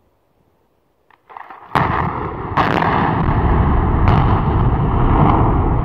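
Explosive demolition charges going off at the bases of three concrete cooling towers. A sharp blast about two seconds in is followed by further cracks, with a loud continuous rumble between them.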